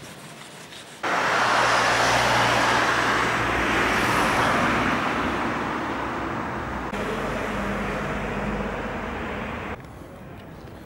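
Road traffic noise: a loud, steady rush with a low engine hum. It cuts in abruptly about a second in and stops sharply near the end.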